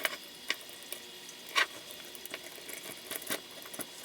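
Scattered small metal clicks and scrapes of hand tools working lock nuts onto screws, tightened without the proper size wrench, with a few sharper clicks over a faint steady hiss.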